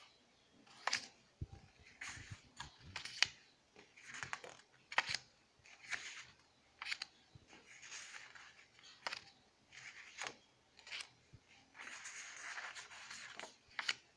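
Sheets of 4x4 inch scrapbook cardstock being handled and laid one by one onto a pile: papery swishes and sharp taps, about one a second.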